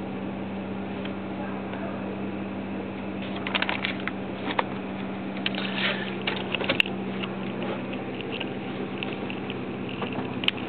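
Close-up rustling and light clicking of fabric and handling, starting about three seconds in and coming irregularly, over a steady low hum.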